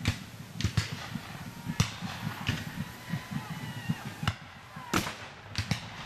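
Scattered black-powder gunfire from Civil War reenactors: about eight sharp reports at irregular intervals. The loudest come about two and five seconds in.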